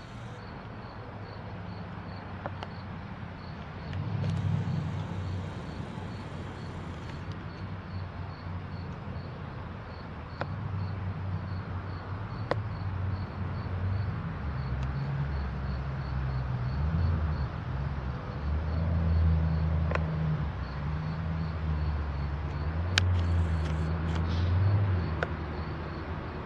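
Low, uneven rumble of a vehicle engine, louder in the second half, with insects chirping steadily.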